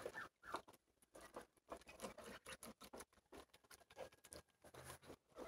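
Geese pecking and dabbling at ice and water in a trough: faint, irregular clicks and taps of their bills.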